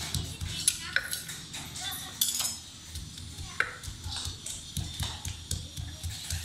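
Wooden pestle pounding garlic and chili in a clay mortar, a knock with each stroke at an irregular pace of about one or two a second.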